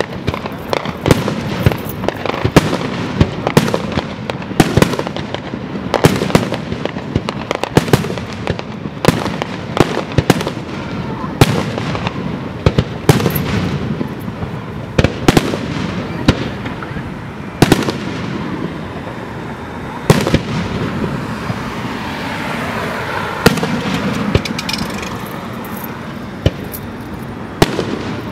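Aerial firework shells bursting one after another: sharp bangs come several a second at first and thin out after about twelve seconds, over a continuous rumble of noise between the bangs.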